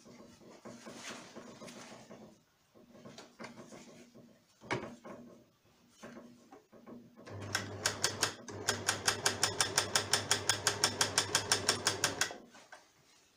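Overlock (serger) sewing machine: a few clicks and fabric rustles as the work is handled, then about seven seconds in the machine runs in a rapid, even stitching rhythm with a low motor hum for about five seconds, with a brief stop after the first second.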